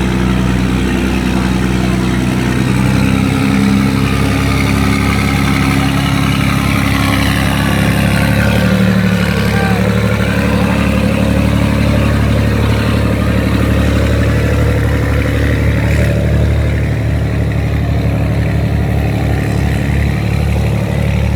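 Boat engine running hard and steady under heavy load while towing a three-deck riverboat stuck in mud, its pitch shifting slightly about eight to ten seconds in.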